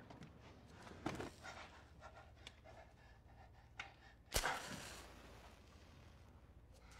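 A man breathing hard in short, panting breaths. About four seconds in, a match is struck with a sharp scratch and flares with a brief hiss; this is the loudest sound.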